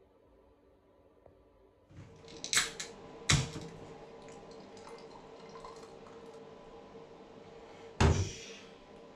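An aluminium beer can being opened, a few clicks and then a sharp crack as the ring-pull breaks the seal about three seconds in, followed by beer being poured into a glass. A loud heavy thud comes near the end.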